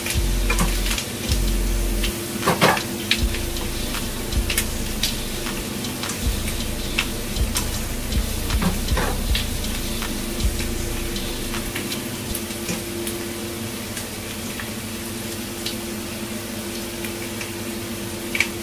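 Pork belly and flowering chives sizzling in a non-stick wok while a plastic spatula stirs them, scraping and knocking against the pan. The knocks come often in the first half and thin out later, over a steady low hum.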